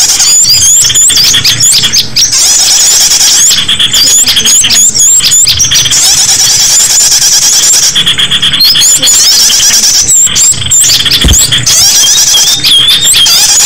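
Small-bird lure call used to draw small birds in: a loud, dense overlapping mix of high-pitched chirps, upward-flicking calls and fast trills, repeating throughout.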